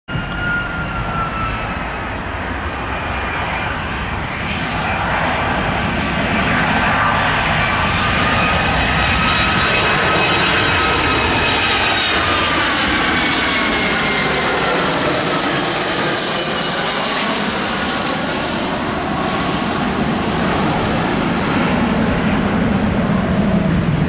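Boeing 757-200 jet engines on final approach: a whine that falls slowly in pitch as the roar builds, loudest and most hissing as the airliner passes overhead around the middle, then turning to a deeper rumble as it flies away.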